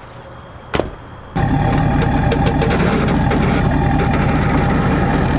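A single thump about three-quarters of a second in, then a Ford Super Duty pickup's engine starts abruptly about a second and a half in and runs steadily at idle.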